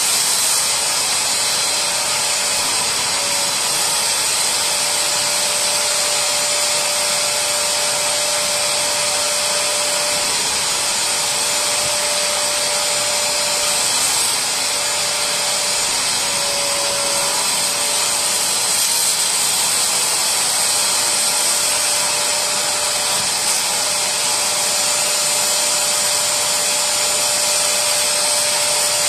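Bissell SpotClean Pro spray-extraction cleaner's 750 W suction motor running steadily, a rushing suction through the hose and upholstery tool as it is drawn over fabric, with a faint steady tone underneath.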